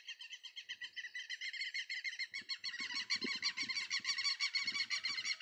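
Southern lapwings (tetéus) calling in a continuous chorus of rapid, high, repeated notes, growing louder about halfway through. Low thuds are scattered through the second half.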